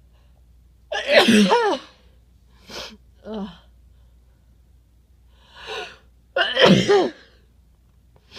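A person sneezing hard twice, about five seconds apart, with a few shorter, quieter sounds from the nose and breath in between.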